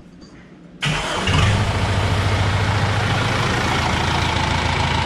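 Kubota M6040 tractor's diesel engine starting about a second in, catching almost at once and settling into a steady idle. This is the first start after an oil change, run to check for leaks.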